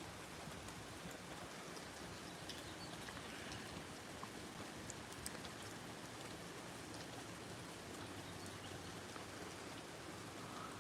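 Rain falling, a faint steady hiss with scattered individual drips ticking through it.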